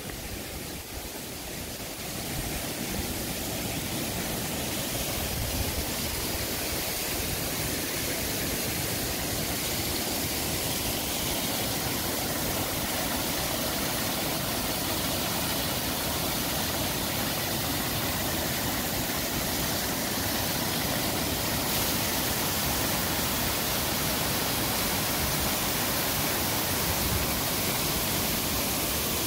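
Steady rush of a small waterfall pouring over rock ledges, swelling over the first couple of seconds and then holding even.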